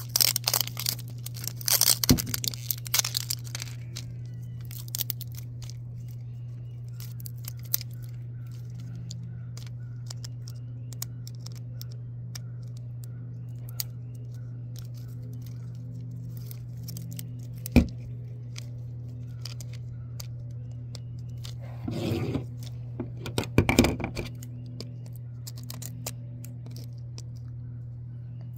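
Plastic wrapper and tape being peeled and torn off a plastic Mini Brands capsule ball: bursts of tearing in the first few seconds and again later, with scattered small clicks and scrapes in between. A steady low hum runs underneath.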